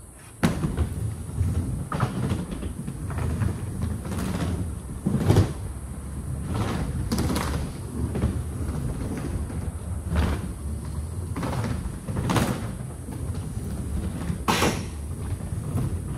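Skateboard wheels rolling around a wooden skate bowl: a steady rumble on the wood, with a louder knock or sweep every second or two.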